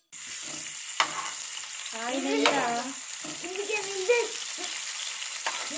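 Sliced onions sizzling in hot oil in a frying pan as they are stirred with a steel ladle, with a sharp clink about a second in. A voice briefly calls out around two to three seconds in.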